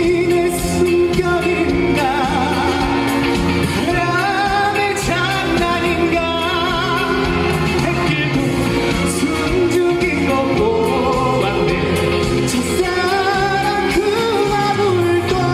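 A trot song performed live: a singer's voice with heavy vibrato over a backing track with a steady bass beat.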